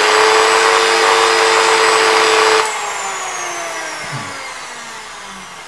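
Parkside PFBS 160 B2 rotary multi-tool motor running at its top speed of about 40,000 RPM with a loud high whine. About two and a half seconds in, the power is cut and it spins down, the whine falling steadily in pitch as it fades. The owner thinks the strange noise may come from the tool being well used.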